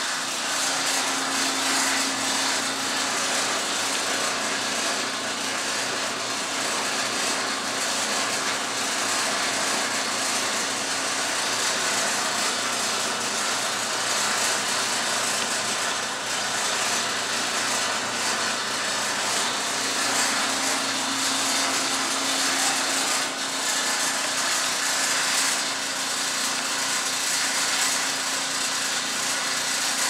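Whirlpool Cabrio electric clothes dryer running mid-cycle, a steady, unbroken drone with a low hum under it. It is running very noisy, a noise the owner takes as a sign that it needs repair.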